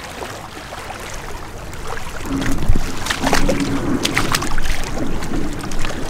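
Shallow seawater sloshing and splashing as a bamboo pole is worked into the seabed by someone wading, with a few sharp splashes in the middle.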